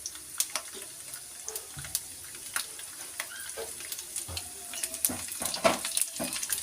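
Ajwain seeds and garlic cloves frying in hot mustard oil in a pan: a steady sizzle with many small pops and crackles, getting busier near the end.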